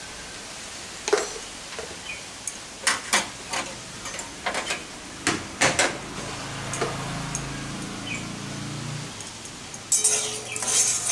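Hot mustard oil with turmeric and salt crackling in a steel kadai: scattered sharp pops and spits over a faint sizzle. About ten seconds in, a louder, harsher rush of sizzling and scraping as a metal spatula goes into the pan.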